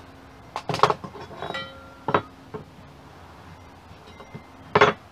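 A handful of separate knocks and clinks as metal hand tools and cut wooden pieces are handled and set down on a wooden worktable; one clink about a second and a half in rings briefly like metal, and the loudest knock comes near the end.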